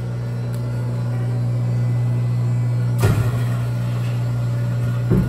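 Mold-A-Rama wax-animal vending machine running with a steady low hum. A sharp mechanical clunk comes about three seconds in and another near the end.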